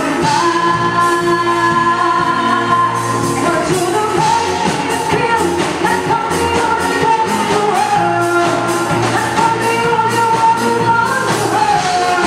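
Live band playing a pop song through a PA, a woman singing lead with long held notes over guitars and a steady beat.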